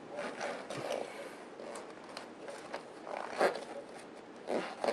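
Rubber RC tire and its foam insert rubbing and scraping against the wheel rim as hands work the tire onto a beadlock wheel, in short irregular strokes with a louder scrape about three and a half seconds in.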